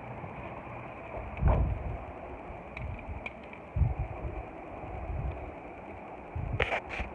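Handling noise from a toy foam-dart blaster and its darts: a few dull low thumps, then a quick cluster of sharp plastic clicks near the end.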